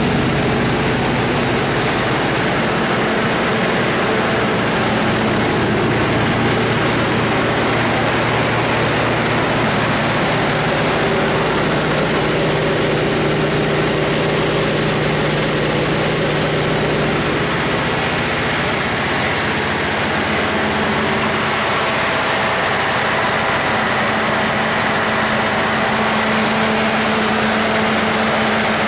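Cummins NTA-855-G3 turbocharged inline-six diesel generator set running steadily at its governed 1800 rpm, carrying electrical load. The engine, cooling fan and alternator blend into one even drone.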